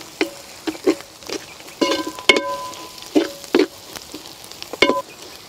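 Metal slotted ladle stirring onions and green chillies in a large aluminium pot, knocking and scraping against the pot a dozen or so times at an uneven pace, the pot ringing briefly after each knock. Onions frying in oil sizzle faintly underneath.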